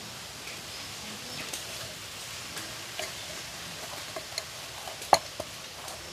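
Light handling sounds of a ball of dough being lifted, turned and shaped in a steel bowl: scattered soft taps and clicks, with one sharper click about five seconds in, over a steady faint hiss.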